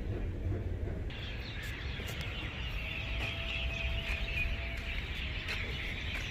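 Lexus LS430's V8 idling with a low steady rumble, the engine that the scan tool shows misfiring on cylinder 8; a steady high hiss joins about a second in.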